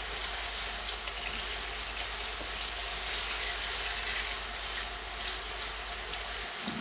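Chicken pieces frying in oil and spice masala in a pot, a steady sizzling hiss with a few faint ticks. The chicken is well fried, with the oil separating from the masala. A low hum runs underneath and cuts off near the end.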